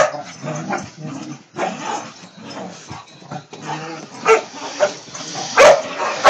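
Two dogs play-fighting: low growling between a few sharp barks, the loudest barks near the end.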